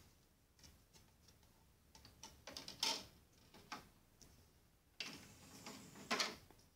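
A compact disc being set into the open tray of a Sony CD player: small plastic clicks and taps, the loudest about three seconds in. About five seconds in comes about a second of mechanical whirring as the tray draws shut, ending in a clunk.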